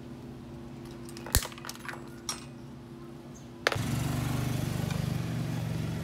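A few sharp metallic clicks and clinks from tools and bike brake parts being handled, over a steady low hum. A little past halfway the background changes abruptly to a louder steady low rumble, like a motor vehicle running close by.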